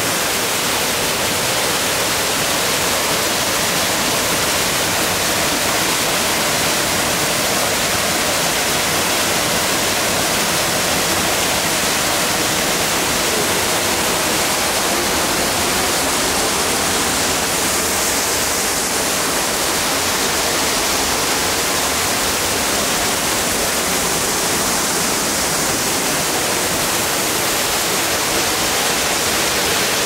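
St Nectan's Glen waterfall pouring into its plunge pool, heard from right at its base: a loud, steady rush of falling water.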